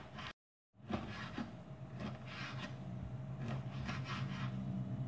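Kitchen knife dicing ham on a wooden cutting board: a run of short cuts and taps of the blade against the board, over a steady low hum, with a brief dropout to silence about half a second in.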